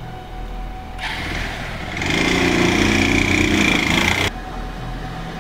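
Motorbike engine starting and revving, louder from about two seconds in, then cutting off abruptly just after four seconds.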